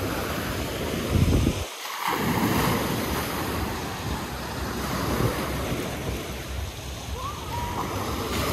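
Small sea waves breaking and washing up over a pebbly shore, the surf rising and falling as each wave comes in, with a brief drop-out about two seconds in.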